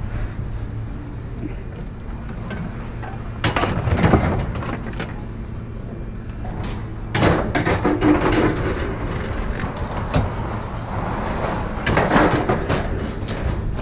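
Scrap metal clattering and banging as pieces are tossed onto a pile, in three bursts, the middle one with a brief metallic ring, over a steady low machine hum.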